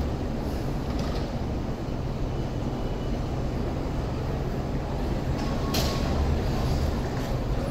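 Hong Kong Light Rail vehicle approaching slowly along the track: a steady low rumble of wheels and traction equipment, with one sharp click about six seconds in.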